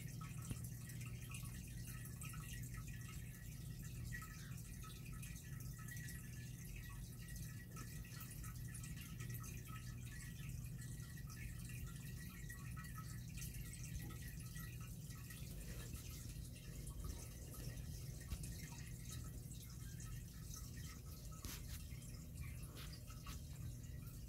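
Home aquarium aeration: water bubbling and trickling faintly and continuously over a steady low hum.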